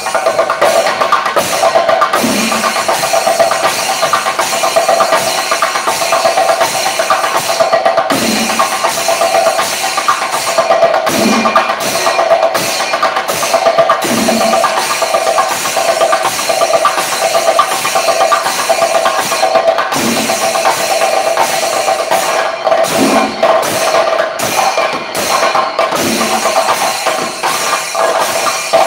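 A chenda melam ensemble: many Kerala chenda drums beaten with sticks in a fast, continuous rhythm, with heavier low strokes every few seconds.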